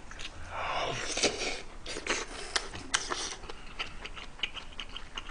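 Close-up eating sounds: a mouthful of kimchi stew slurped in and chewed, with a few sharp clicks.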